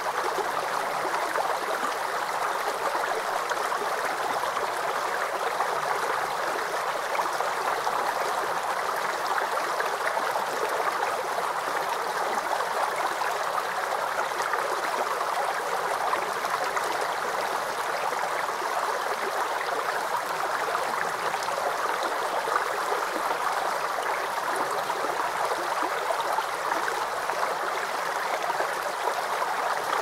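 Steady rushing of flowing water: an even, unbroken noise that does not change.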